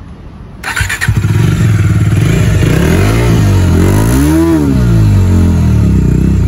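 Bajaj Dominar 400's single-cylinder engine started, catching about a second in after a brief crank, then idling with one rev that rises and falls around the middle before settling back to idle. Heard close to the exhaust outlets.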